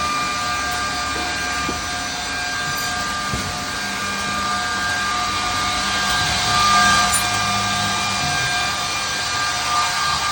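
Edge banding machine running: a steady motor whine with several high tones over an even hiss and a low hum, growing louder about two-thirds of the way through.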